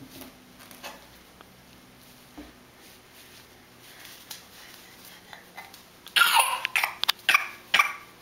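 A baby's short breathy laughs, several in quick succession, starting about six seconds in and close to the microphone; before them only faint room sounds.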